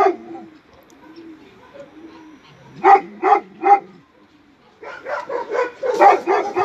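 Romanian shepherd dog barking in bursts: three deep barks about three seconds in, then a fast run of barks, about five a second, from near the five-second mark on.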